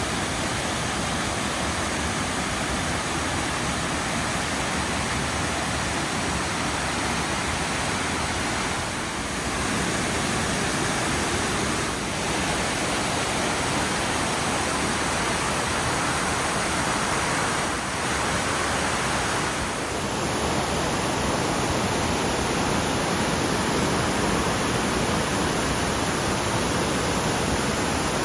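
Waterfall: a steady, loud rush of falling water, with a few brief dips in level.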